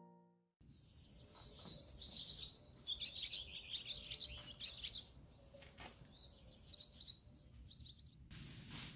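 Small birds chirping and twittering, busiest about two to five seconds in. Near the end a steady rustling hiss comes in with a few faint knocks.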